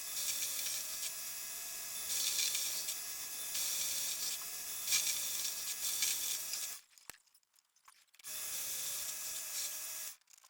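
Mini lathe running with a cutting tool scraping into the metal workpiece, a steady hiss over a faint motor whine. It cuts off abruptly about two-thirds of the way through for a second or so, then resumes and cuts off again near the end.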